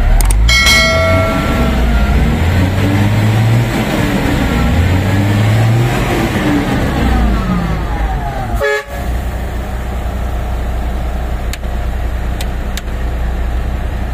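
MAN diesel dump truck running, its engine revving up twice and then settling back down. A horn sounds for about a second near the start.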